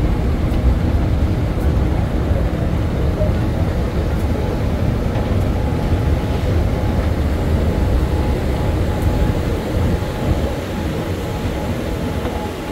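Escalator running under a rider: a steady low rumble of the moving steps and drive, with a faint steady whine over it.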